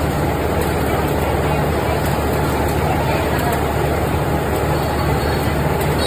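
Industrial brush-roller potato washing machine running: a steady motor hum under a constant noise of water spraying and potatoes tumbling over the soft-bristle rollers.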